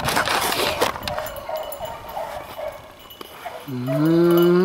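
Rustling through dry leaf litter, with faint short cries in the distance, then about four seconds in a loud, long, low drawn-out call that holds steady and rises in pitch at its end.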